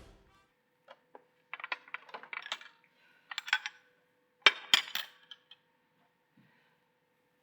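A run of light, sharp clicks and clinks of small hard objects knocking together, in scattered clusters, with the loudest group about four and a half seconds in.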